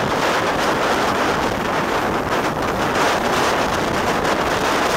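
Wind rushing over the microphone from the window of a steam-hauled train running at speed, with the train's running noise underneath.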